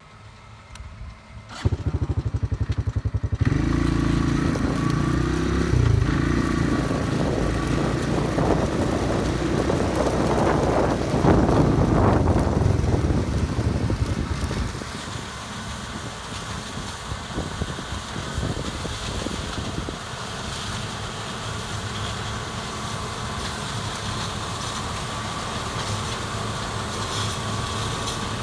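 A John Deere 9400 combine's diesel engine being started: the starter cranks it over in a quick even rattle for under two seconds, the engine catches about three and a half seconds in and runs loudly, then settles to a steadier, quieter idle about halfway through.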